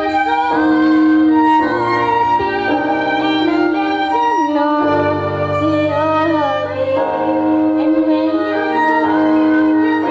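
Choir performance: sustained sung notes over a string-like instrumental backing with a bass line, the melody gliding between long held notes.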